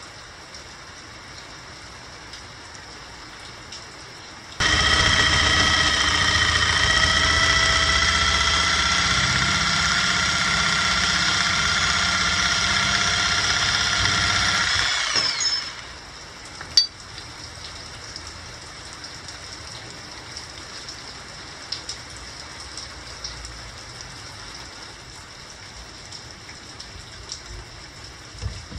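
Handheld electric jigsaw switched on about five seconds in, running for about ten seconds with a steady high whine that sags slightly in pitch, then winding down. Afterwards only faint clicks and handling sounds.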